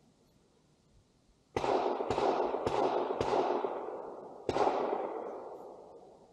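Five gunshots from another firearm: four about half a second apart, then a fifth about a second later. Each has a long echoing tail.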